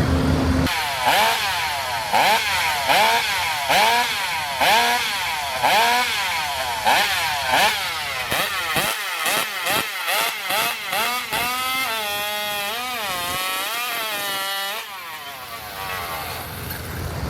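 Racing chainsaw engine being blipped repeatedly, its pitch jumping up with each quick rev about once a second, then faster. It is then held at high revs with the pitch wavering up and down before it falls back near the end.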